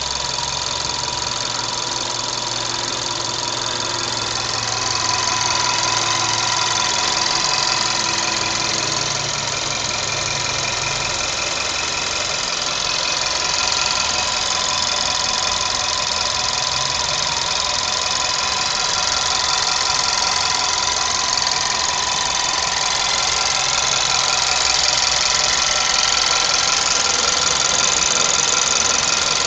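Volkswagen Polo 6R's 1.2 TSI 105 hp turbocharged four-cylinder petrol engine running steadily, getting slightly louder about five seconds in and again near the end.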